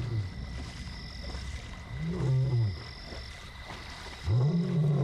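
Male lion calling with long, low roars that rise and fall in pitch, one about two seconds in and another near the end. A steady high-pitched chorus of frogs runs underneath.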